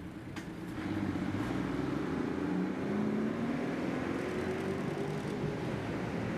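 A vehicle engine passing, a low drone that gets louder about a second in and slowly rises in pitch.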